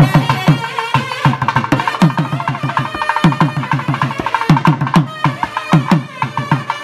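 Thavil barrel drum played in quick, driving strokes, each deep stroke dropping in pitch, with sharp stick clicks between them. A nadaswaram double-reed pipe plays a melody above the drum, the two together making the periya melam heard at Tamil temple rituals.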